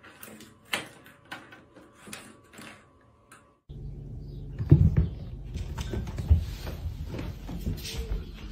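A cat batting a small plastic object across a tiled floor, making a series of light clicks and taps. From about four seconds in there are dull thumps over a steady low rumble as cats clamber about a carpeted cat tree.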